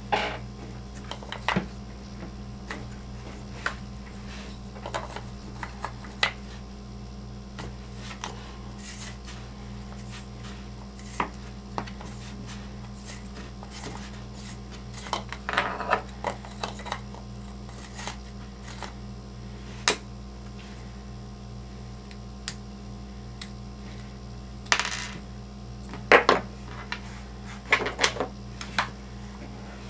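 Scattered clicks, clinks and light knocks of small tools and plastic RC truck parts being handled at a wheel on a workbench, with a few busier clusters. A steady low hum runs underneath.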